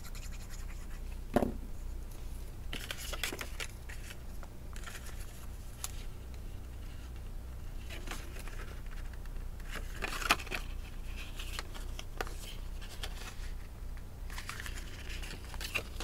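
Cardstock being handled, with soft, intermittent scratching and rustling of card as a small paper tab is glued and pressed into place. A single sharp knock comes about a second and a half in.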